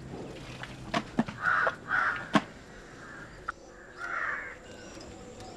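Crows cawing, several hoarse caws with a pause between them, over a few sharp clicks.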